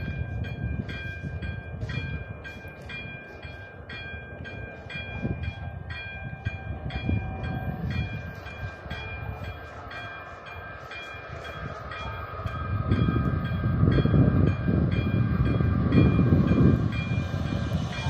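AŽD 71 level-crossing warning signal's bell ringing in evenly spaced strokes. From about twelve seconds in, the low rumble of an approaching train builds and grows louder under the bell.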